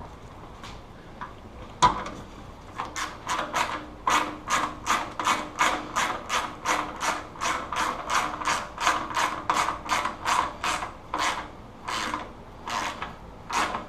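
Hand ratchet wrench clicking as it runs a bolt in, with short even strokes about three a second, after a single sharp knock about two seconds in.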